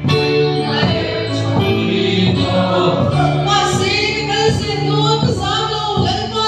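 A congregation singing a worship song together, led by a woman on a microphone, over sustained steady accompaniment chords.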